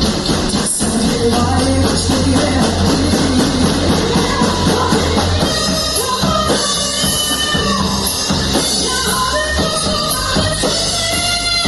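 Rock band music with a drum kit, a song in full play, with a very short break under a second in.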